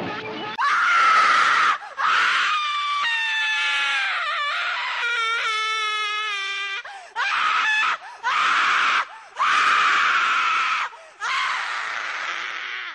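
A woman screaming again and again: about six long, harsh screams with short breaks between them, the longest one in the middle held on a wavering pitch.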